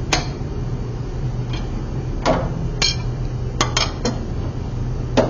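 Steel wrenches clinking on a table saw's arbor nut and on the saw table as the nut holding a dado blade is snugged down: a handful of sharp metallic clinks at irregular intervals, over a steady low hum.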